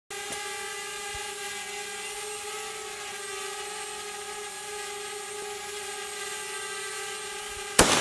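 A small drone's propellers hum steadily at one pitch, then near the end a single loud bolt-action rifle shot goes off, with a long echo dying away.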